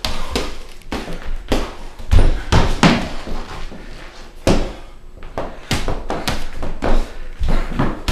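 High-heeled shoes knocking and stomping on a hardwood floor in irregular footwork, a string of sharp clacks and thuds. The loudest come a couple of seconds in, with a quieter stretch around the middle.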